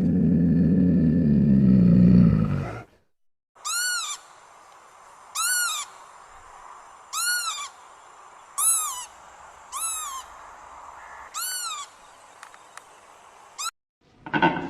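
A loud, low animal growl that cuts off about three seconds in, followed by seven short, high animal calls, each rising then falling in pitch, about one every second and a half.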